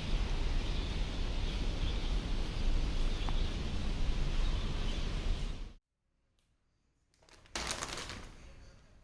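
Steady rain with a low rumble underneath, cutting off abruptly about six seconds in. After a brief silence, a short rushing noise starts and fades away.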